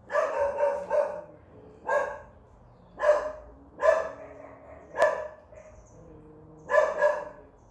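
A dog barking repeatedly, short sharp barks: three in quick succession at the start, then single barks about a second apart, and two close together near the end.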